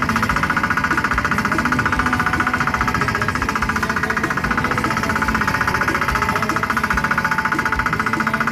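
Fishing boat's engine running steadily under way, with a rapid, even knocking beat.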